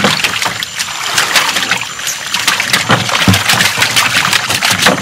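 Water splashing and sloshing around a small boat, with many irregular short splashes.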